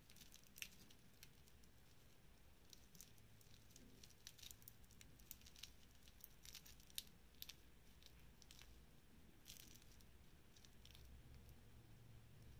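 Faint, scattered clicks and crinkles from a metal-link wristwatch bracelet and its clear plastic protective film being handled.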